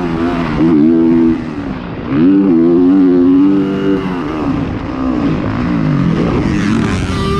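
Motocross dirt bike engine heard on board, revving hard with its pitch climbing. It dips briefly a little over a second in, then climbs and holds again. From about four seconds in the revs fall away as the throttle is rolled off, and it runs at a lower pitch to the end.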